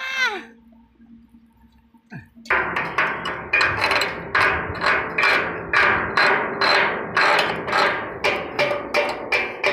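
A very even run of sharp ringing strikes, a little over two a second, starting about two and a half seconds in, after a short falling tone at the very start.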